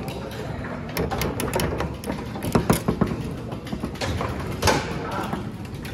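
Foosball table in play: the ball knocking off the plastic men and the table's walls, and the steel rods clacking as they are slid and spun, with sharp hits in a cluster about halfway through and again near the end.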